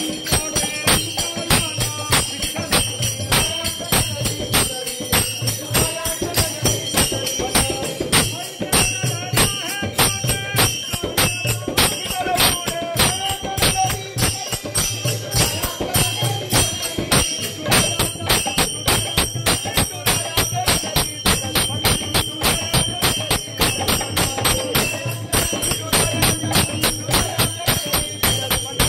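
Group devotional singing of a Divyanamam bhajan, with the melody rising and falling, over a steady quick beat of sharp strokes, about two to three a second.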